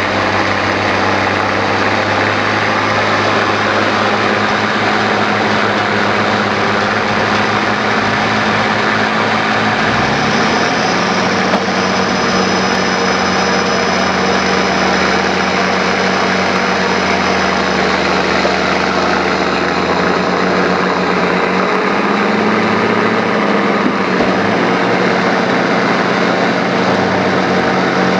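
Off-road 4x4 engine running steadily, its pitch stepping up a little about ten seconds in as it is revved higher, with a faint high whine for several seconds after that.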